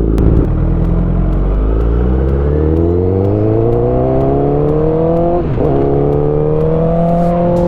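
Honda CBR1000RR inline-four engine accelerating under way, its pitch climbing steadily. About five and a half seconds in the pitch drops sharply with an upshift, then climbs again more slowly.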